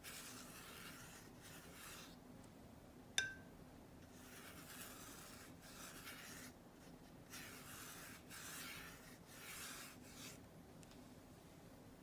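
Faint swishes of a wet watercolour brush stroked back and forth across paper, about eight soft strokes each lasting under a second, laying in a wash. A single sharp click about three seconds in.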